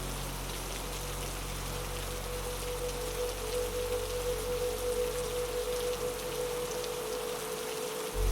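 Steady rain patter layered with a dark ambient synth drone: a held mid-pitched tone over a low hum, and the low hum fades away just before a deep swell comes in at the very end.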